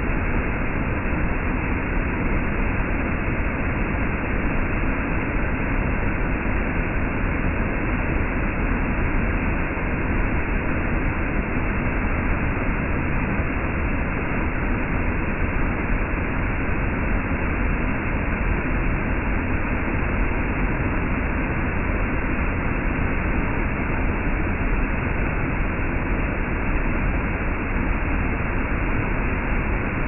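Waterfall plunging into its pool: a steady, unbroken rush of falling water.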